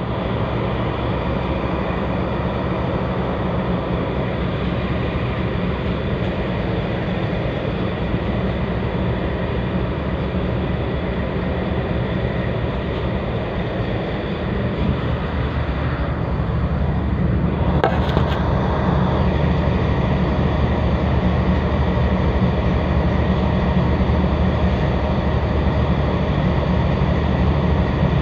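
Tugboat's diesel engines running with a steady low drone, a little louder about two-thirds of the way through, with one short click around then.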